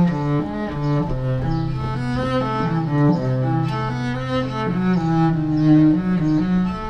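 Solo cello being bowed, playing a melody, with a low note held for a few seconds under changing higher notes.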